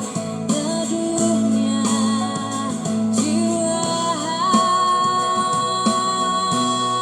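A woman singing a slow pop ballad over guitar and bass, holding one long, wavering note from about halfway through.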